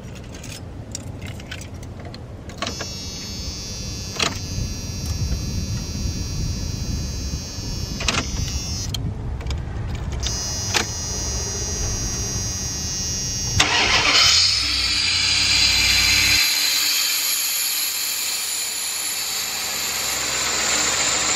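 1993 Dodge Ram B250 van's 318 V8 being started: the ignition key and starter crank it, and about 14 seconds in the engine catches with a sudden loud burst and keeps running steadily. This is the first start on a newly fitted idle air control valve, a start she calls "really intense".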